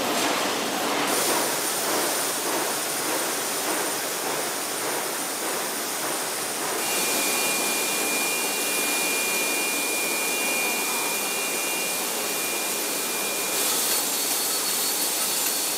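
Ammunition-plant machinery running: a steady, loud wash of noise with thin high whines over it. The sound changes abruptly about a second in, near seven seconds and near fourteen seconds.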